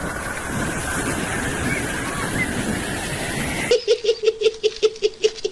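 Steady rush of wind and sea noise on an open boat; about three and a half seconds in it cuts to a man's rapid, high-pitched giggling laugh, about six or seven even pulses a second, which is the loudest sound.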